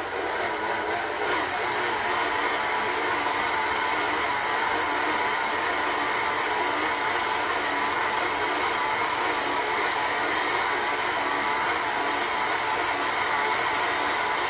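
Electric stand mixer running at a steady speed, its flat beater turning through cookie dough in a stainless steel bowl.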